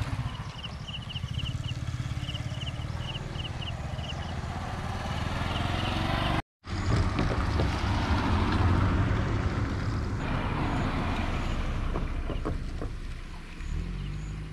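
Road traffic passing close by: a motorcycle goes past first, and after a brief dropout a small hatchback car drives past. A run of short high chirps repeats in the first few seconds.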